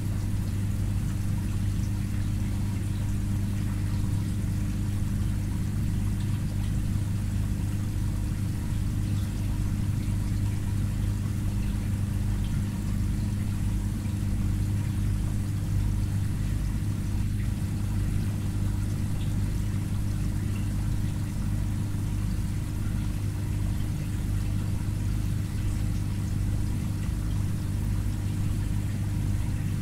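Aquarium filter or pump running: a steady low hum under a continuous trickle of moving water.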